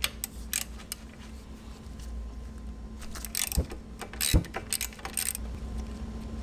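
Scattered light metallic clicks and clinks of hand tools and brake caliper hardware being handled, with two louder clanks about three and a half and four and a half seconds in.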